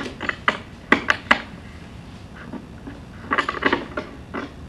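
Metal kitchenware clinking and clattering: utensils knocking against pans and a griddle in a string of sharp clicks, with a quick run of taps about three and a half seconds in.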